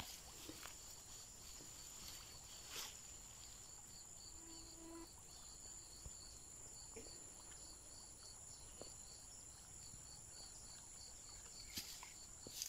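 Faint insect chorus: a steady high trill with a regular high chirp about three times a second, and a few soft clicks of handling.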